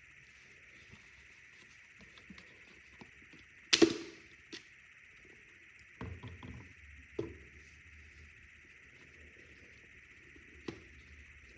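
A few sharp knocks and clicks over a faint steady hiss, the loudest about four seconds in, with a quick cluster of smaller ones around six seconds.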